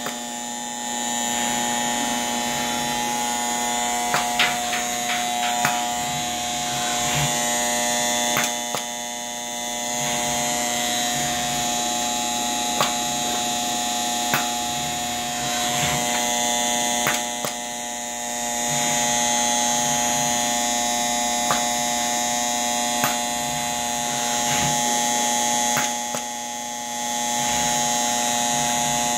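Yaskawa Motoman robot arm running: a steady servo hum and a high whine that swells and fades as the arm moves in phases of several seconds, with sharp clicks as the gripper picks up and sets down the cups on the scale.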